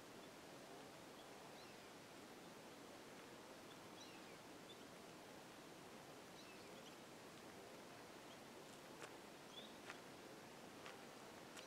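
Near silence: faint steady background hiss with scattered faint high chirps of small birds, and a few soft clicks near the end.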